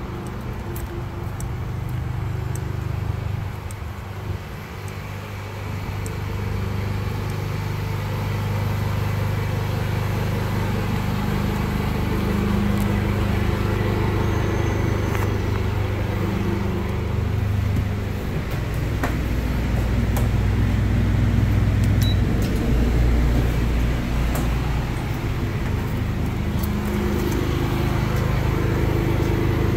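An engine running steadily with a low rumble whose pitch and loudness shift slightly over time, with a few light clicks and knocks over it.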